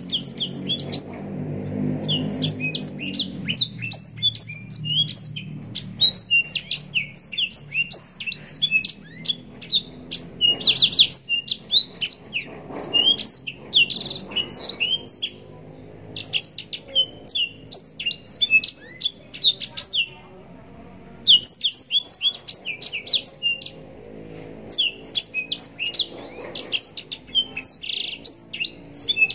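Blackthroat (black-throated canary) singing a long, continuous song of rapid high chirps and trills, broken by short pauses about fifteen and twenty seconds in.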